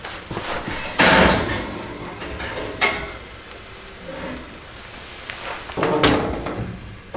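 Metal wire grill basket and oven rack clattering and scraping as they are slid into an oven, with a sharp clank about a second in and another near three seconds. Near the end the oven door is swung up closed.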